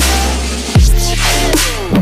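Background music: an electronic hip-hop/dubstep track with heavy sliding bass notes and a steady beat.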